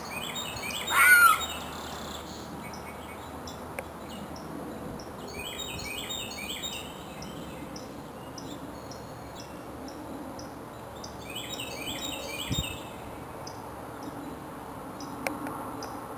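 Birds calling: one loud rising call about a second in, then two bursts of rapid chirps, over a steady background hiss and a faint, fast, high-pitched pulsing.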